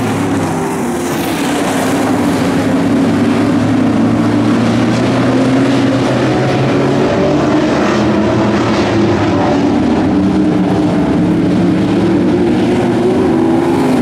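Pro stock dirt-track race cars' V8 engines running hard as the field laps the oval, several engine notes overlapping and rising and falling in pitch, loud and continuous.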